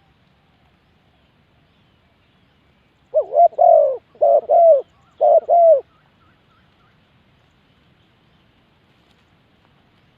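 Spotted dove cooing: one loud phrase of several rounded coos in three quick groups, lasting about three seconds and starting about three seconds in.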